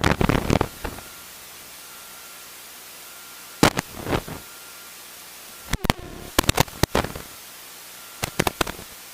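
Steady hiss from the aircraft's headset intercom and radio feed, broken by sharp static crackles and pops, in a few clusters from about three and a half seconds in.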